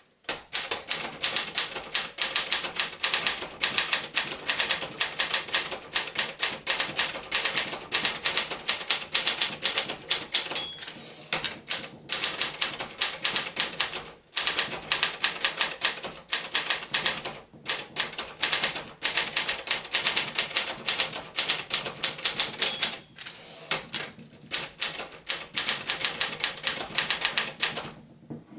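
A 1978 Brother Accord 10 portable typewriter typing fast, with a rapid, uneven clatter of key strikes. Twice a short bell rings, each followed by a brief pause in the typing, and a coffee mug rattles on the desk along with the strikes.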